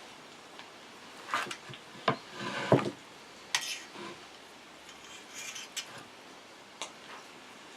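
Metal cooking utensils clinking and knocking in a handful of separate short clatters, the loudest cluster about one and a half to three seconds in, with lighter clinks later.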